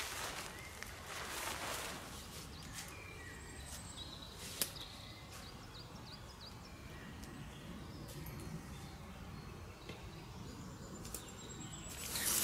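Quiet woodland ambience with scattered faint bird chirps. Soft rustling in the first couple of seconds as the tarp fabric is handled, and a single sharp click about halfway through.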